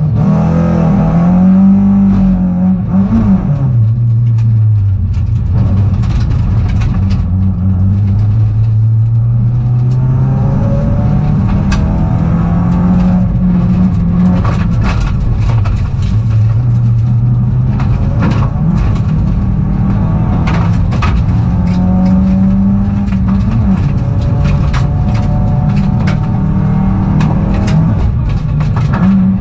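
Peugeot rally car's engine heard from inside the cabin at full effort, revving up and dropping back over and over, with scattered sharp knocks from about a third of the way in.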